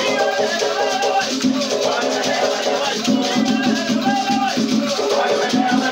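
Afro-Brazilian batuque ceremonial music: rattles shaken in a steady rhythm under voices singing.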